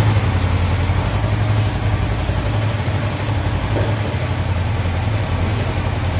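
Motorcycle engine idling steadily with a constant low hum.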